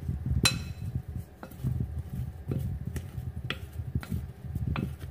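A wooden spoon stirs oiled baby potatoes in a glass mixing bowl. The potatoes tumble and knock together in a steady low shuffle, with a few sharp clinks against the glass, the brightest about half a second in.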